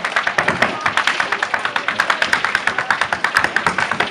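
Irish hard-shoe step dancing: a fast, even rhythm of sharp heel-and-toe taps from hard shoes on the stage board, several taps a second, over live traditional music with guitar.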